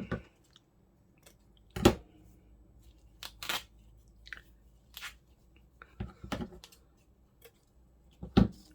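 Scissors snipping and craft materials being handled: a scattering of separate crisp snips and crunches, the loudest a little under two seconds in.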